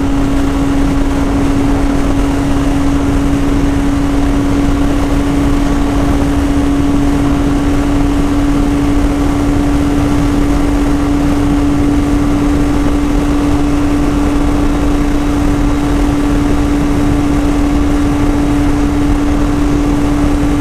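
Benelli 502C's 500cc parallel-twin engine held at a steady high rpm during a high-speed run, its pitch unchanging, under heavy wind rush on the helmet microphone.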